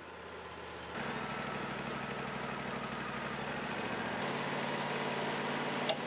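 Wood-Mizer LT40 sawmill's engine running steadily at idle, a little louder from about a second in, with a brief click near the end.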